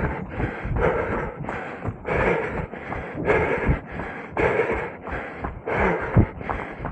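A runner breathing hard close to the microphone, a steady rhythm of about two breaths a second, with footfalls thudding underneath.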